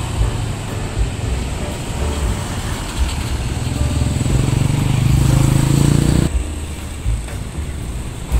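Street traffic noise with a small lorry's engine growing louder as it passes close by, then cutting off suddenly about six seconds in, leaving lighter traffic noise.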